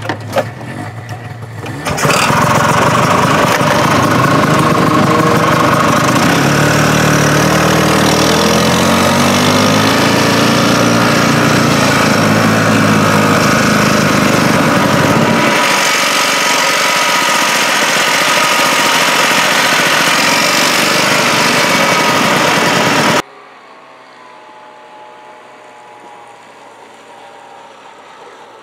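Snowmobile engine revving up about two seconds in and running hard, pulling a sleigh load of logs, its pitch rising and falling as it works. Well past the middle it cuts suddenly to a much quieter, distant engine.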